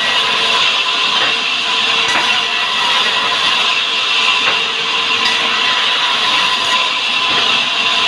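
Sawmill band saw running steadily as its blade rips a plank of salam hardwood lengthwise: a loud, even cutting noise with a high steady whine through it.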